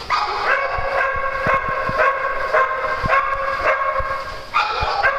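An excited dog whining at a high, steady pitch, pulsing about twice a second into yips, with scattered low thumps underneath. The whine stops about four seconds in.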